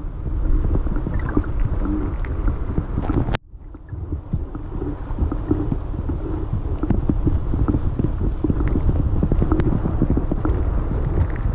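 Muffled, rumbling rush of river water heard through an underwater camera housing, with scattered small clicks and knocks. It drops out abruptly about three and a half seconds in and builds back up.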